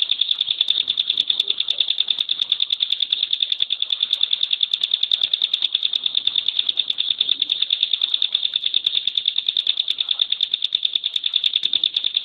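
Ciblek pinus (a mountain prinia) singing a long, unbroken rapid-fire 'tembakan' trill: the same high note repeated about ten times a second without a pause.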